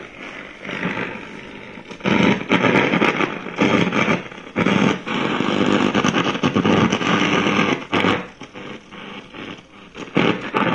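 iBell Castor FM660BT multiband radio's speaker hissing and crackling with static in stretches that surge and drop as the dial is tuned. The owner blames the crackle on interference from chargers and machines running nearby.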